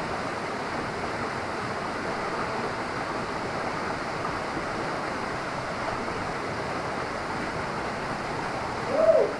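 Small waterfall pouring into a creek pool: a steady rush of falling water. About nine seconds in, a short voice call rises and falls over it.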